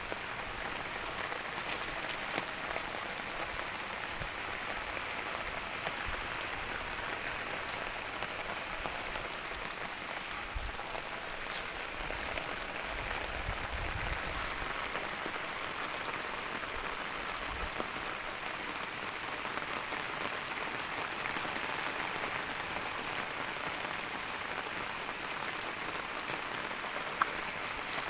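Steady rain falling on surfaces, an even hiss with scattered individual drop ticks.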